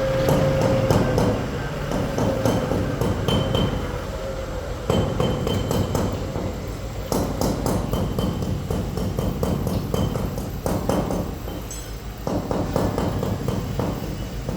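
Manual milling machine cutting mahogany: a steady motor tone under a dense, irregular run of clicks and knocks from the cutter. The tone sags slightly and fades within the first few seconds.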